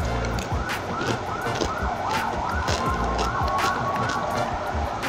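Edited-in music or sound effect: a siren-like warbling tone repeating about three times a second over low pulsing bass, with a steady held note through the middle.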